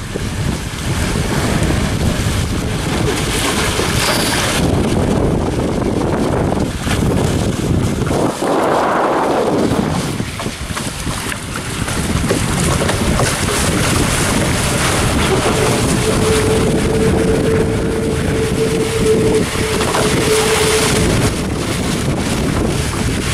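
Wind buffeting the microphone and water rushing along the hulls of a Hobie Tiger catamaran sailing fast in strong wind. A steady humming tone joins in for about five seconds past the middle.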